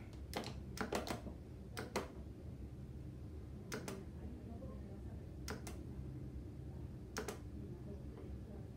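Plastic button switches on a Talkable 4 switch platform being pressed, each press a sharp click, mostly in quick press-and-release pairs: several in the first two seconds, then three more presses spaced about a second and a half to two seconds apart.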